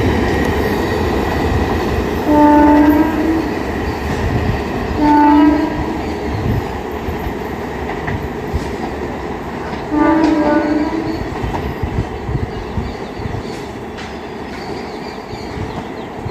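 Indian Railways electric locomotive horn sounding three short blasts, at about two, five and ten seconds in, over the steady rumble and wheel clatter of a passing express train that slowly fades.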